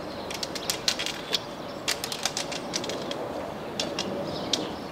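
Long white cane's tip tapping and scraping on paving stones as a blind walker sweeps it side to side, giving irregular sharp clicks a few times a second over a steady outdoor hiss.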